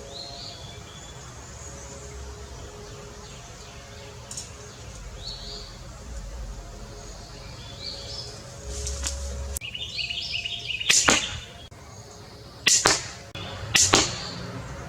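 Cobra pistol crossbow being shot: a sharp snap a little past the middle, then two more close together near the end. Small birds chirp in the background.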